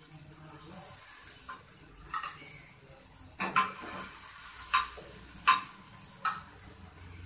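Sliced vegetables sizzling in hot oil in a metal kadai while a spatula stirs them, scraping and knocking against the pan about half a dozen times.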